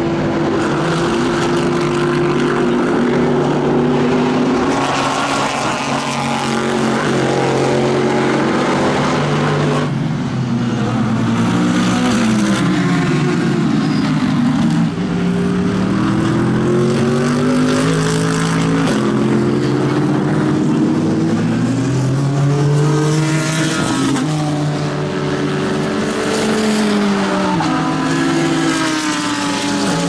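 Mercedes-AMG GT3 race cars' naturally aspirated 6.2-litre V8 engines at full racing speed, passing one after another. The engine note keeps rising through the gears and falling on lift-off and downshifts.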